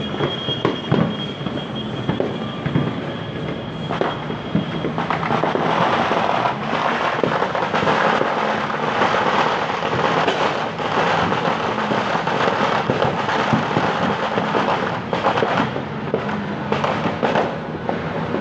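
Fireworks going off: many bangs and pops close together, growing louder and denser about five seconds in into a near-continuous barrage.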